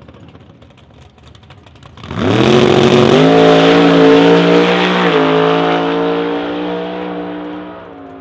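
Hemi V8 drag car launching hard about two seconds in, its engine note rising with full throttle and stepping at gear changes about one and three seconds later, then fading as it pulls away down the track.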